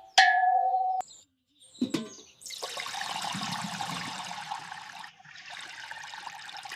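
Cartoon sound effect of milk streaming into a pail as a cow is milked by hand: two long spells of rushing, splashing liquid, the first about two and a half seconds long and the second shorter. Before them come a short held tone and a couple of clicks.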